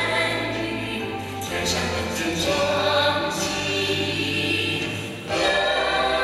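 Music with a choir singing. A short dip about five seconds in, then it comes back in suddenly at full level.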